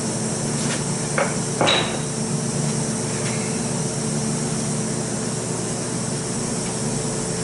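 Two sharp metal-on-metal knocks a half second apart, the second louder with a short ring, as parts and tools are handled at a car transmission's axle bore, over a steady shop hum.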